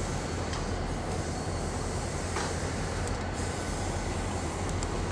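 Ontario Northland Northlander passenger train rolling slowly out as its last coach passes: a steady rumble of wheels on the rails, with a single click about halfway through and a couple of short high squeals near the end.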